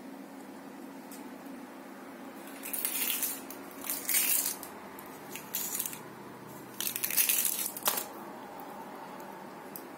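Sweet wrapper crinkling in four short spells as a cat paws and mouths a wrapped sweet on the floor, over a steady low hum.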